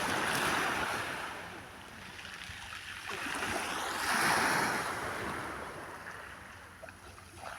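Sea waves washing onto the shore, two swells of surf noise that build and fade, the second about four seconds in.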